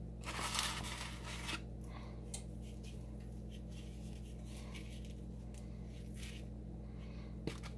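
Faint rustling and light clicks of hands rubbing seasoning onto a raw steak: one longer rustle early in, then a few scattered soft ticks, over a steady low hum.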